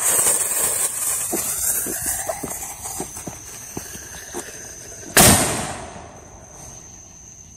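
A lit firework fuse hissing and spitting sparks, fading over a few seconds with scattered small crackles. About five seconds in there is a single loud firework boom.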